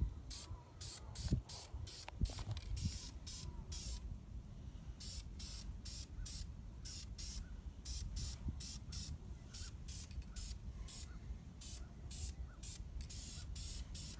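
Aerosol can of high-temperature engine enamel spraying in many short hissing bursts as a light tack coat goes onto an engine block, with a pause about four seconds in. A low rumble runs underneath.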